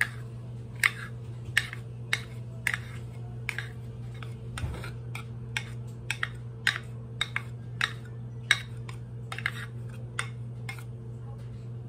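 A spoon repeatedly clicking and scraping against a tub as soft makapuno coconut is scooped out into a mixing bowl: sharp irregular clicks, one or two a second, over a steady low hum.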